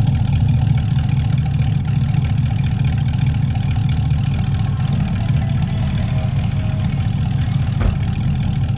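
Chevy Silverado pickup engine idling steadily, a low, even exhaust note from the tailpipe. A brief knock comes near the end.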